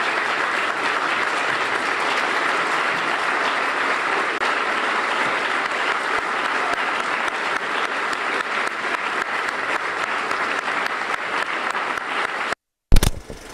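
A congregation applauding in a standing ovation, steady clapping that cuts off suddenly near the end, followed by a brief loud burst.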